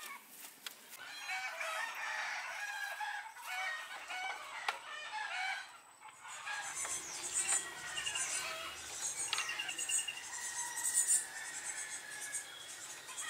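Chickens clucking and crowing, a dense run of short calls in the first half. From about six seconds in it is quieter, with quick high-pitched chirps.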